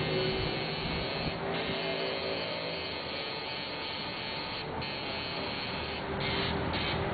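Electric tattoo machine buzzing steadily as the needle shades skin.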